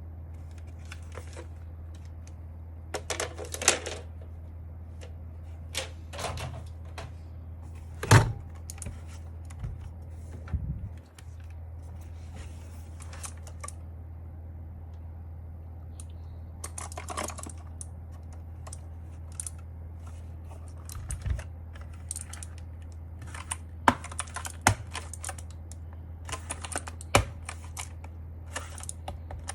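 Irregular plastic clicks and clatter from an Akko mechanical keyboard being taken apart by hand, over a steady low hum.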